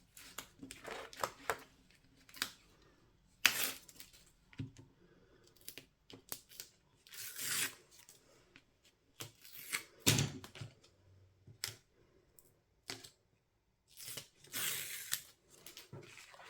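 Release paper being peeled off pieces of double-sided foam tape: short, papery peeling rasps a few seconds apart, with small taps and rustles of paper being handled between them.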